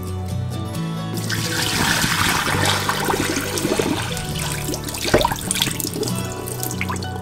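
Cloudy rinse water from washing sticky rice is poured out of a rice cooker's inner pot into a kitchen sink, splashing from about a second in, with a single knock about five seconds in. Background music with a steady bass line plays under it.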